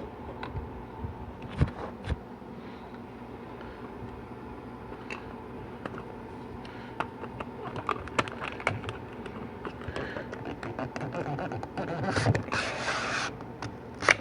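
Seal-installer tools clicking and scraping against a 4L80E transmission shaft as a seal is pushed down into its groove, with scattered small knocks and a louder stretch of scraping near the end.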